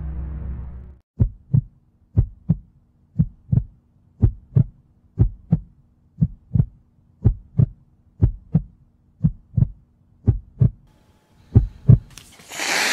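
Heartbeat sound effect: paired lub-dub thumps repeating steadily about once a second, over a faint low hum. A low rumble fills the first second, and a rush of noise swells near the end.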